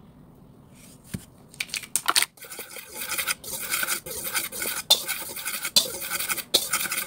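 A spoon stirring dry ingredients (flour, yeast and salt) in a stainless steel mixing bowl, scraping and clinking against the metal in quick repeated strokes. It starts about a second and a half in, after a single knock.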